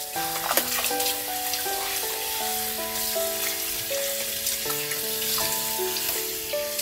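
Kitchen tap running, its stream splashing over blue crabs held under it and rinsed by hand in a stainless sink, a steady hiss starting at the outset. Background music with held melody notes plays throughout.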